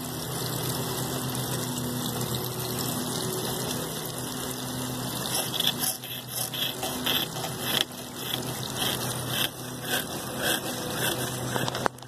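Water from a garden hose pouring down a small chute onto a model water wheel, a steady splashing rush. From about halfway, light irregular clicks and taps join in.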